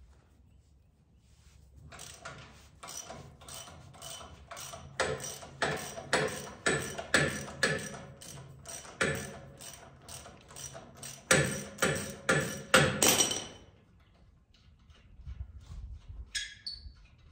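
Socket ratchet wrench clicking in quick repeated strokes as a bolt is backed out, in runs with short pauses, stopping about thirteen seconds in.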